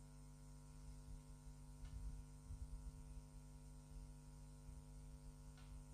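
Near silence: a steady low electrical hum from the recording, with a couple of faint soft ticks.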